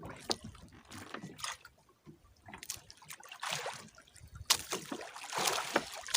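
Water splashing and trickling, with scattered small clicks and knocks; the splashing swells about three and a half seconds in and again from about four and a half seconds.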